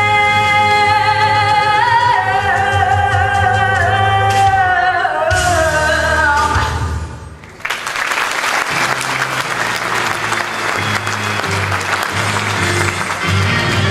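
A singer with a live band holds a long final note that slides down and ends about seven seconds in. The audience then breaks into applause and cheering over low notes from the band.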